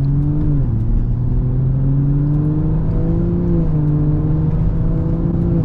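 BMW 340i's B58 turbocharged straight-six accelerating under load, its pitch climbing and then dropping sharply at each upshift: once about half a second in, again at about three and a half seconds, and again near the end.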